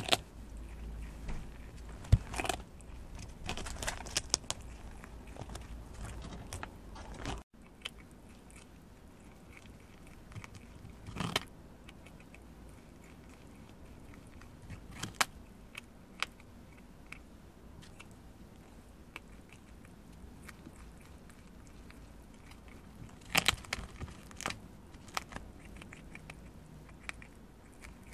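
Prairie dog gnawing and chewing on a whole ear of corn in its husk: clusters of crunchy bites and crackles with quieter stretches between.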